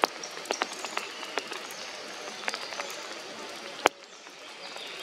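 Forest ambience: a steady hiss with scattered sharp ticks and faint high calls, and one louder knock a little before four seconds, after which the hiss briefly drops.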